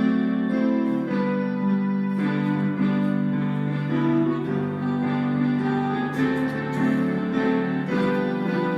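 Instrumental keyboard music: slow sustained piano chords.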